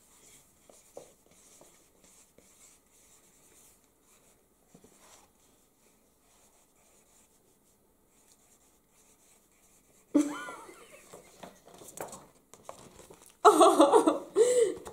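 Faint scratching of pens writing on paper pads, then from about ten seconds in two women laughing, loudest near the end.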